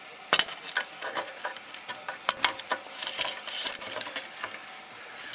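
Aerosol can of WD-40 sprayed in short spurts onto the shackle bolts, mixed with irregular clicks and knocks of the can and hands against the metal underbody.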